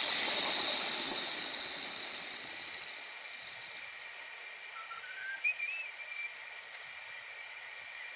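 Angle grinder just switched off after cutting a granite slab, its disc spinning down with a high whine that falls in pitch and fades over about three seconds. After that only a faint steady background, with a short bird chirp about five and a half seconds in.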